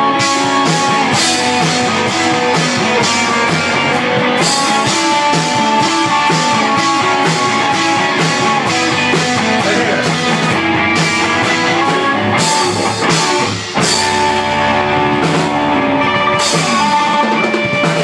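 A rock band playing live: a drum kit keeps a steady beat under electric guitars. The music dips briefly about three-quarters of the way through, then carries on.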